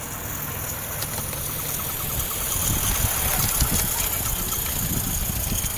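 Small live-steam model locomotive running past, its exhaust chuffing rapidly with light, evenly spaced clicking, growing louder as it comes close about halfway through.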